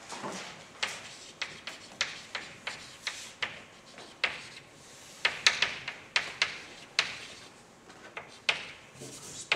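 Chalk writing on a blackboard: an irregular run of sharp taps and short scratches, about two or three a second, as letters are written.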